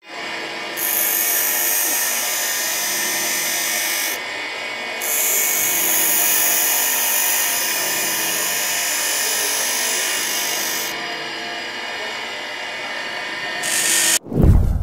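Intro sound effect: a steady, droning hiss with a high sizzle that cuts in and out several times, ending in a deep boom hit near the end.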